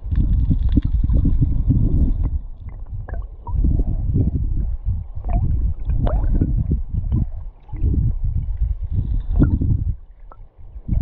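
River current heard underwater through the camera's housing: a muffled, uneven gurgling rumble with scattered sharp clicks, easing off near the end.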